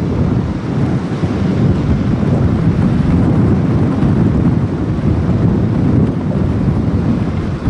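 Wind buffeting the microphone of a camera riding in a moving vehicle, a steady low rumble, with the vehicle's road and engine noise underneath.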